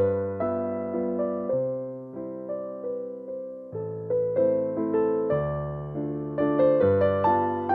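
Background music: a gentle piano melody with chords, notes struck and fading one after another.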